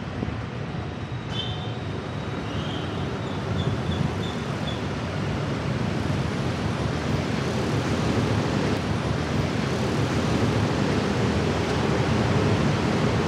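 Street traffic noise: motorcycles and other vehicles passing, a steady rumbling hiss that slowly grows louder, with a few short high chirps in the first few seconds.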